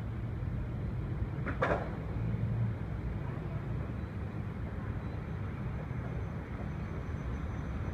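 Steady low rumble of distant road traffic and bus engines, with one short sharp clack about a second and a half in.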